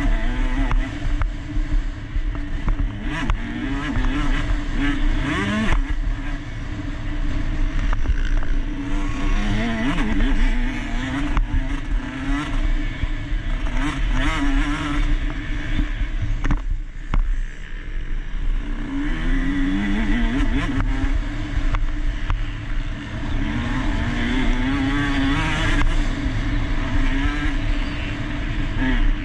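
KTM 150 SX two-stroke motocross bike racing, its engine revving up and dropping back again and again as the rider works the throttle, with a short easing off about seventeen seconds in.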